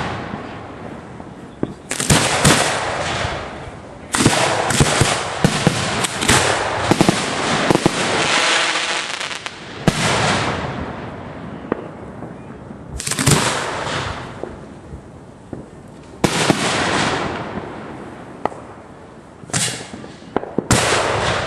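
Fireworks being fired in a show: a series of sharp bangs, each trailing off in a hiss over about a second. A rapid run of shots comes between about four and eight seconds in, then single bangs a few seconds apart.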